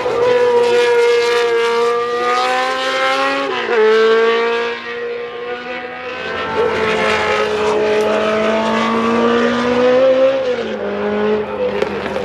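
Can-Am sports-racing car engine running at high revs. Its pitch climbs slowly and then drops sharply twice, about a third of the way in and near the end, as it shifts up a gear.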